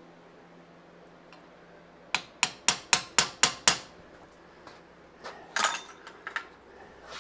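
Hammer striking a hand-held chisel into hot Damascus steel: seven quick, sharp metallic blows at about four a second, then a few lighter clinks and scrapes near the end.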